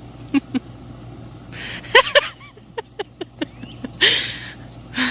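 A baby's short, high vocal squeals and breathy sounds, coming in quick separate bursts.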